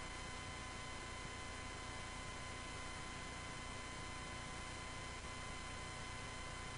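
Steady hiss and hum from a VHS tape with no programme sound, with a faint high whine held at one pitch throughout.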